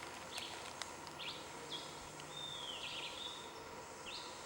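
A bird calling in a string of short, high chirps, about two a second, with one longer, curving note in the middle, over steady outdoor background noise. Two sharp clicks come near the start.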